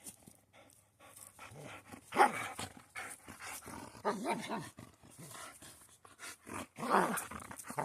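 Boxer dog growling and vocalising in play over a toy, with two louder outbursts, one about two seconds in and one near the end.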